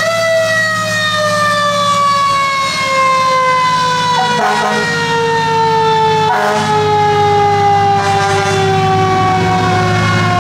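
Antique fire engine's siren, wound up to full pitch just before, winding slowly down in one long falling wail, over the low steady drone of the truck running.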